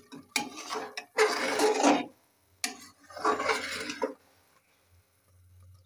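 Metal ladle stirring and scraping thick rice porridge in an aluminium pot. It makes two long scraping strokes, each starting with a sharp knock.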